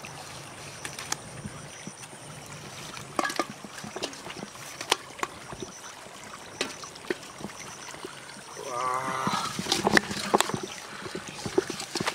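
Scattered light knocks and water splashes from a bamboo fish basket being tipped over an aluminium pot of water, with fish moving in it. About nine seconds in there is a short, wavering, voice-like call.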